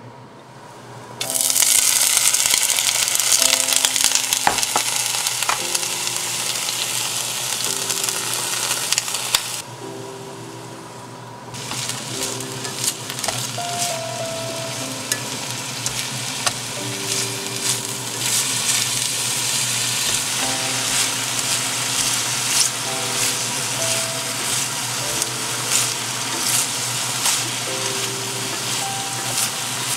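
Julienned burdock root and carrot sizzling loudly in hot oil in a frying pan as they are stir-fried with chopsticks. The sizzle starts about a second in, drops away briefly around ten seconds, then comes back with frequent clicks of the chopsticks against the pan. Soft background music plays underneath.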